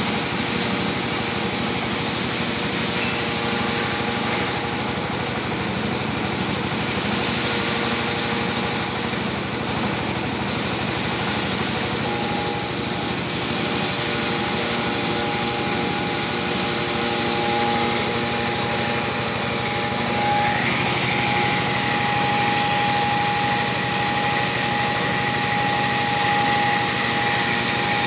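A 1-ton-per-hour corn cracking machine running steadily while cracking dried corn kernels, with a steady high whine that grows stronger about halfway through.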